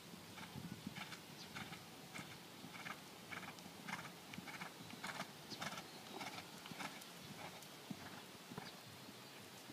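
German Riding Pony cantering on sand footing: faint, rhythmic hoofbeats at about two strides a second.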